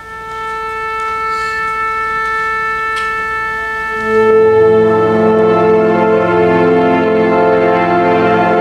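Wind band: a single wind instrument holds one steady note alone, and about four seconds in the full ensemble joins on a loud sustained chord.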